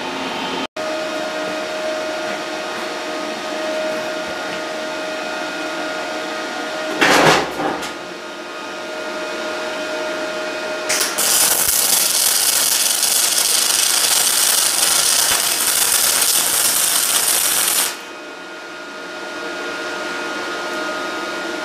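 Steady hum of the Parkside PMSG 200 A2 welder, with a brief loud burst about seven seconds in. About eleven seconds in, the MIG arc strikes on aluminium, feeding 1 mm 5356 aluminium wire at 18.4 V and 101 A, and runs as an even, loud hiss for about seven seconds before it stops abruptly. The welder afterwards judges this setting a bit too strong.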